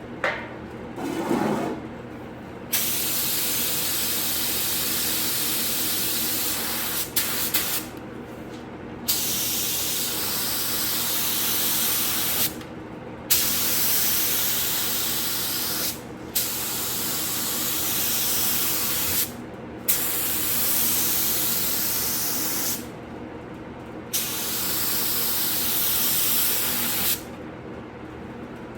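Harbor Freight paint spray gun spraying primer: loud hissing passes a few seconds long, about seven of them, each cut off by a brief pause as the trigger is let go.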